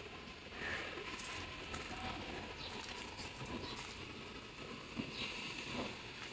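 Faint outdoor ambience with light rustling of leaves and a few soft clicks.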